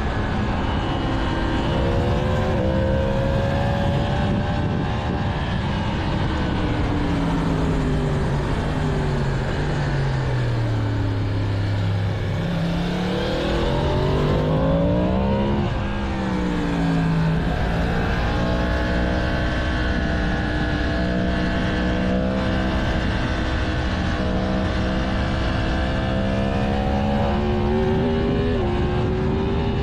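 2022 Yamaha MT-10's 998 cc crossplane inline-four through its stock exhaust, heard from the moving bike. Engine speed falls slowly for about ten seconds, then climbs hard for a few seconds and drops suddenly as it shifts. It then holds a steady cruise before rising again near the end, over a constant rush of noise.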